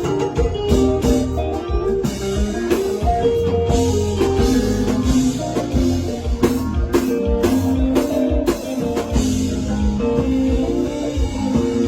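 Band music: a guitar solo with many short melodic notes over a steady drum-kit beat.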